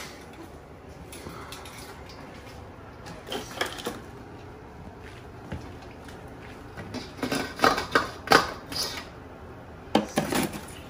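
Metal kitchen tongs clacking and scraping against crab shells in a plastic cooler as crabs are grabbed. The clatters come in short bursts, once about three seconds in, loudest around eight seconds, and again near the end.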